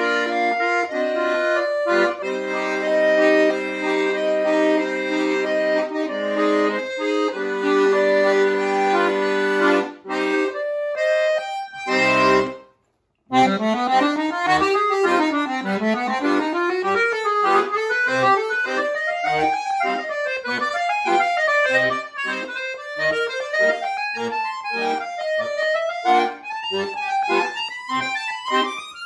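Chromatic button accordion playing solo: long held chords at first, a brief break about halfway through, then fast running passages that climb and fall in quick waves.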